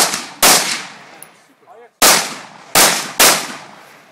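Five AR-15 rifle shots: two in quick succession, a pause of about a second and a half, then three more. Each shot rings out and trails off over about a second.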